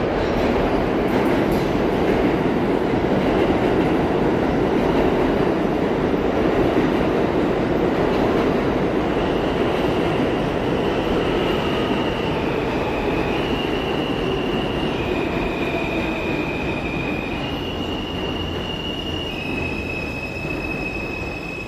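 R160A subway train pulling into the station and braking to a stop: a loud rumble of steel wheels on the rails, joined from about halfway by the high electric whine of its AC propulsion, which jumps up and down in pitch in steps as the train slows, and the noise eases off near the end.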